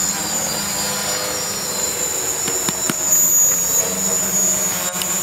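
Electric multicopter's motors and propellers running with a steady high whine and buzz.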